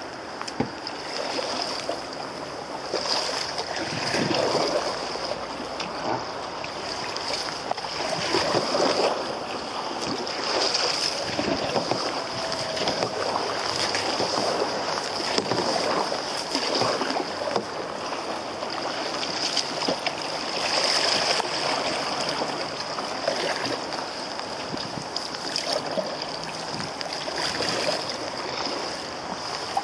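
Fast-flowing river water rushing and slapping against the hull of an open canoe, swelling and easing in irregular surges.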